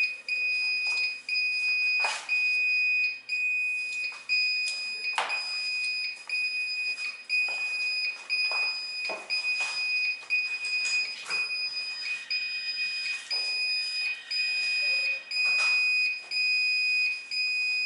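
Building fire alarm sounder giving a high-pitched steady tone, broken by short gaps about once a second, signalling a tripped fire alarm. Scattered clicks and knocks sound over it.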